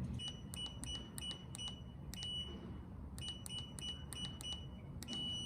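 ApeStellar keyless deadbolt keypad beeping as a code is punched in: short high beeps, one per key press, each with a faint click, in two quick runs with a brief pause between.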